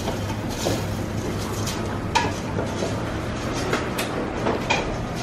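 Kitchen work sounds: a steady low hum with scattered clinks and knocks of pots and utensils, the sharpest about two seconds in and about four seconds in.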